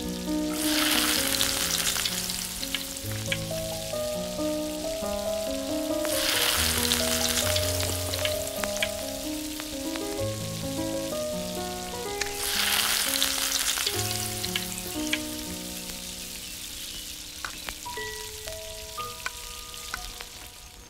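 Hot oil in a miniature iron kadai sizzling in three loud bursts about six seconds apart, each fading, as ingredients such as cumin seeds and green chilli are dropped in. Light clicks of a small spoon are heard. Background music with a melody plays throughout.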